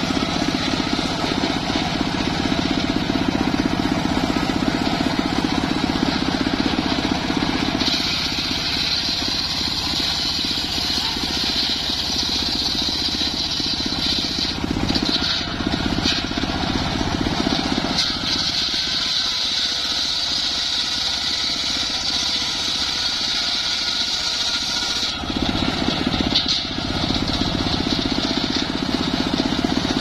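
Homemade engine-driven circular saw bench running steadily while its blade rips an acacia log lengthwise. A high cutting whine comes in about eight seconds in, breaks off briefly around the middle, and returns until shortly before the end.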